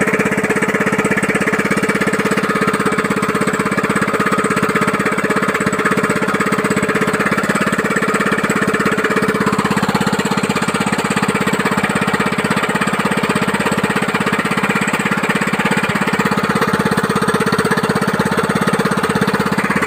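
Ousen 6.5 hp single-cylinder four-stroke gasoline engine running at a steady speed through a newly made long straight exhaust pipe. It makes a loud, rapid, even beat of exhaust pulses.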